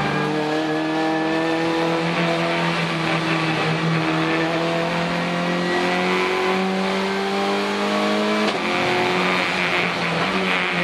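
Renault Clio Cup race car's engine heard from inside the cockpit, accelerating hard with its note climbing slowly as speed builds. There is one quick upshift about eight and a half seconds in, after which the note climbs again.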